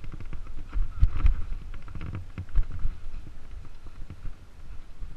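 Mountain bike descending a rough dirt singletrack: an irregular clatter of chain and frame with knocks over bumps, over a low rumble of tyres and wind. The heaviest knocks come about a second in and again past two and a half seconds.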